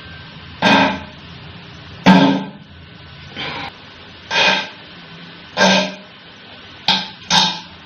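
Guitar strums played one at a time, each ringing briefly and dying away, about seven with irregular pauses between them and two close together near the end.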